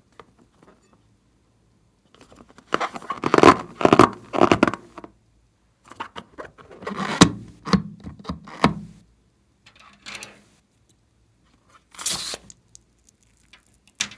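Hands handling slime-making materials close to the microphone: crackly scraping and rustling in several bursts of a second or two, with short quiet gaps between and a sharp click near the end.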